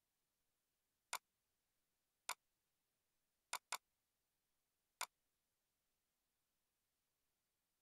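Five short, sharp clicks at uneven intervals, two of them in quick succession, against near silence.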